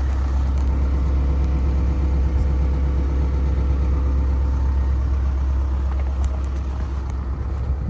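Kobelco SK210LC-10 excavator's Hino diesel engine running steadily, a deep, even hum with no change in speed.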